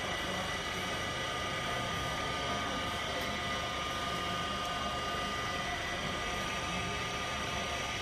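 Vacuum oil purifier machine running: its vacuum pump and Roots pump make a steady mechanical hum with several steady high whining tones over it.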